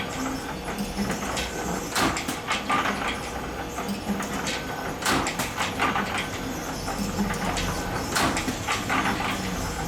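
Spring-making machine running, with a steady low hum under irregular mechanical clicks and clacks; a louder cluster of clacks comes about every three seconds.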